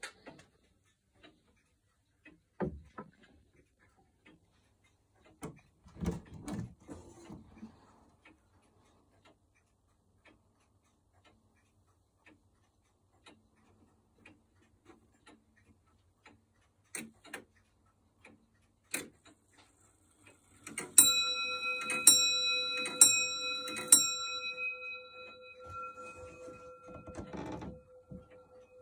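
Thomas Church of Norwich longcase clock ticking steadily, with a knock and some handling noise in the first few seconds. About twenty seconds in it strikes the hour on its bell, four strokes about a second apart, the bell ringing on and fading afterwards.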